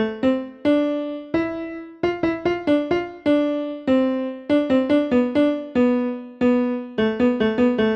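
Background music: a piano-like keyboard playing a single-line melody of struck, decaying notes, some held and some in quick runs.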